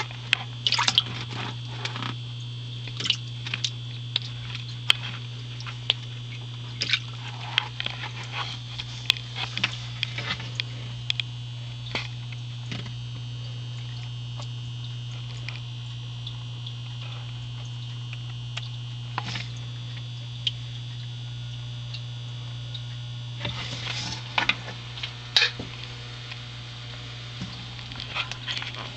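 Steady low electrical hum with a faint high whine, broken by scattered sharp clicks and rustles. The clicks are bunched in the first few seconds and again a few seconds before the end.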